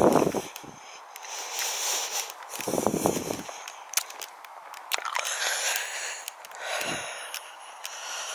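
Footsteps walking through grass, with scattered light clicks and a steady hiss, broken by three short low muffled rushes: one at the start, one about three seconds in and one near the end.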